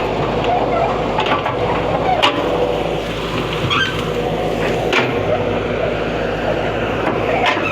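Excavator's diesel engine running steadily, with two sharp knocks about two and five seconds in.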